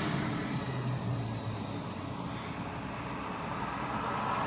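Steady vehicle and road noise: an even rumble and hiss with no distinct event, easing off after a louder passing vehicle at the start and building again near the end.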